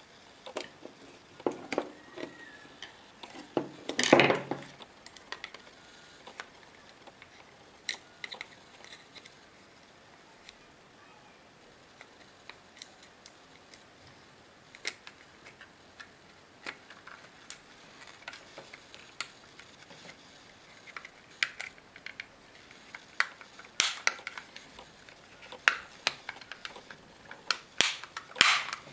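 Scattered small clicks and taps from small parts being handled on a tabletop, with a louder clatter about four seconds in.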